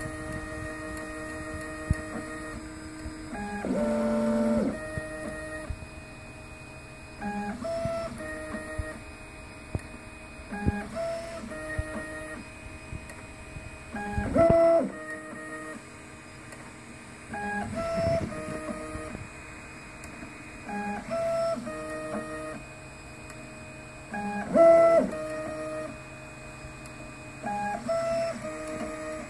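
Stepper motors of a Prusa i3 Hephestos 3D printer running an auto bed-leveling routine with a contactless probe. Short bursts of pitched motor whine come about every three and a half seconds as the head moves between probe points, with a steady hum in between.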